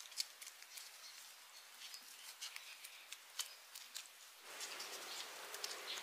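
Gloved hands pressing and working wet soil around rocks: scattered small wet crackles and clicks. A steadier hiss comes up about four and a half seconds in.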